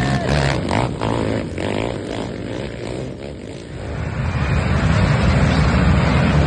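Racing quad ATV engines running at high throttle, surging unevenly and easing off around three seconds in. Then several quads' engines grow steadily louder as a pack approaches.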